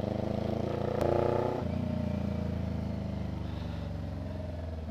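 CFMoto 400NK's 400cc parallel-twin engine through an open SC-Project slip-on exhaust with no silencer, opened up hard for about half a second around a second in, then shut off and dropping steadily in pitch as the bike rolls off.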